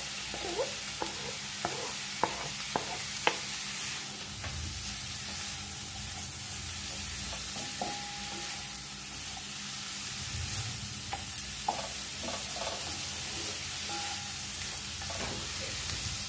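Diced zucchini, onion and red bell pepper sizzling in oil in a frying pan, stirred with a wooden spatula. A run of sharp knocks in the first few seconds as the vegetables are pushed off a plastic cutting board into the pan, and a few more taps of the spatula later on.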